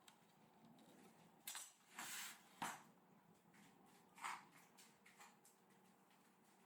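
A few light knocks and clinks of hard objects being handled, with quiet in between.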